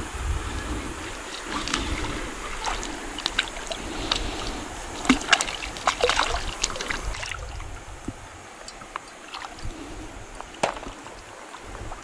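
Shallow river water splashing, with a run of sharp splashes and clicks as a small hooked fish is reeled in and landed by hand. After about seven seconds it settles to a quieter, steady flow of water with only a few clicks.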